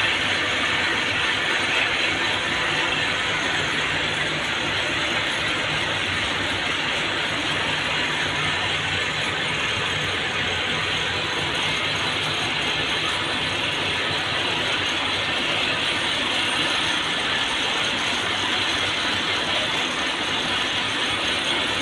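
Thread-winding and cord-making machines running in a cord factory: a steady, dense mechanical clatter that keeps up without a break.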